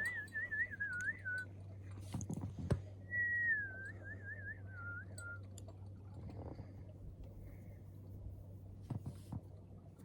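A person whistling a short tune twice, each phrase sliding down and then wavering. A sharp knock falls between the two phrases, over a low steady hum.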